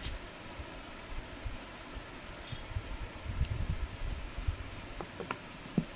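Faint handling sounds: low bumps, then a few light clicks and taps near the end as a hand picks up a pocket calculator from a velvet-lined tray.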